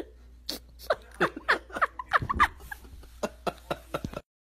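Kitten giving a rapid run of short, high mews, each one sliding down in pitch.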